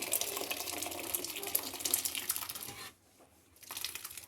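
Water pouring steadily, cutting off about three seconds in; a short, quieter pour follows near the end.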